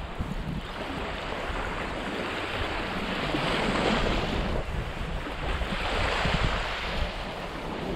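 Small waves breaking and washing up a sandy beach, swelling twice a few seconds apart, over a low rumble of wind on the microphone.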